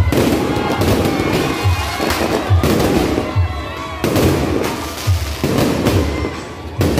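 Aerial fireworks going off overhead with repeated sharp bangs and crackling, over music with a steady bass beat.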